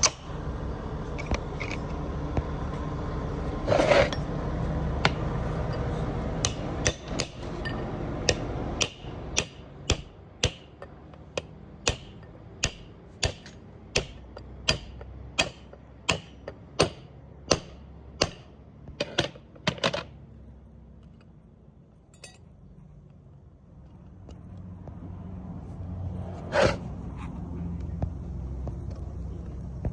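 Hammer striking metal in a steady run of about twenty blows, roughly one and a half a second, during work on a differential's pinion seal and bearing. A few scattered knocks come before the run and one more near the end.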